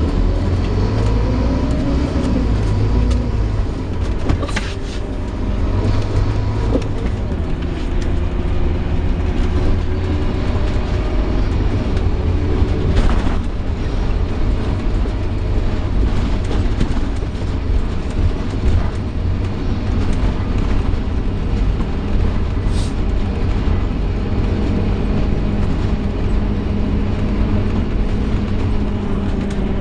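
Inside a Scania K230UB Omnilink single-decker bus on the move: steady diesel engine and road noise, with the groaning noise the bus is known for and a few brief sharp rattles.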